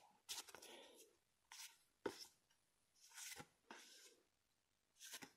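Faint, short rustles and slides of glossy paper postcards being shuffled by hand, with a light click about two seconds in.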